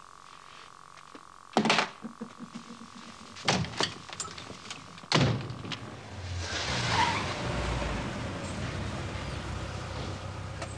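A few sharp knocks and thuds, then a car drives in, its engine rumble swelling about halfway through and then running steadily.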